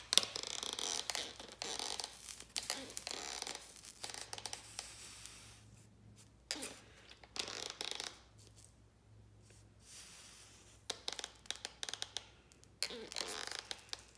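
Trigger spray bottle squirting water in a series of hissing bursts, with clicks in between, onto a hot, smoking carbon arc rod to cool it.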